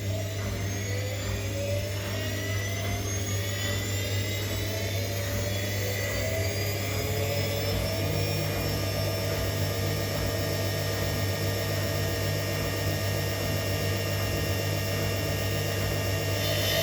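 Bosch Maxx4 washing machine's drum motor spinning up in service test mode: a whine that rises in pitch for about eight seconds, then runs at a steady speed over a deep constant hum. The owner takes the motor to be faulty.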